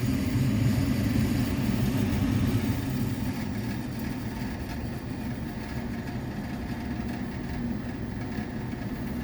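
A furnace running with a steady low rumble that eases slightly about three seconds in, during a failed lighting cycle: the furnace has tried to light several times and this time does not stay lit, faulting out.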